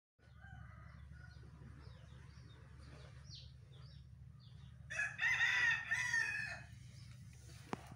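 A rooster crows once, about five seconds in, the loudest sound here. Before it, small birds chirp; a steady low hum runs underneath.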